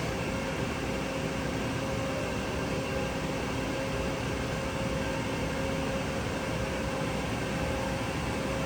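Steady machinery hum: an even whir with a constant mid-pitched tone.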